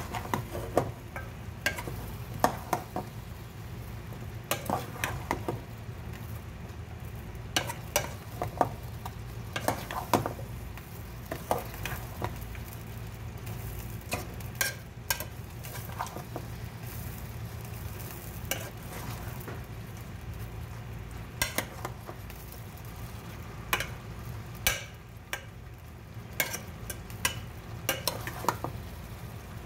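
Metal spoon stirring water spinach and chicken in a pot, with irregular clinks and knocks of the spoon against the pot's side over a steady sizzle of the cooking.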